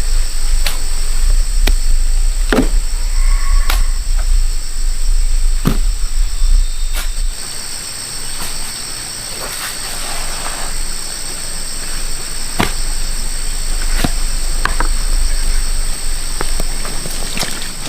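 Steady high drone of insects, with scattered sharp clicks and knocks about once a second. A low rumble stops about seven seconds in.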